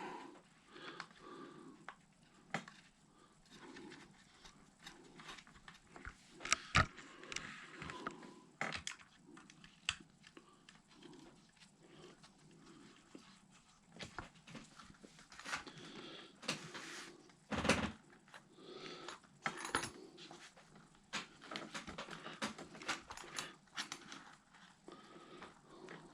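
Scattered light clicks and clacks of plastic and metal RC truck parts and small tools being handled and turned over on a workbench, with a faint soft pulsing sound underneath.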